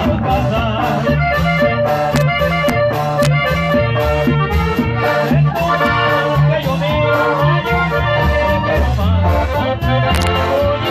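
Live norteño band music: an accordion playing the melody over a bouncing bass line and a steady beat.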